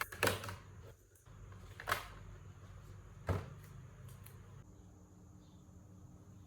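Three or four sharp knocks or clatters, spaced a second or so apart, followed by faint room tone with a low steady hum.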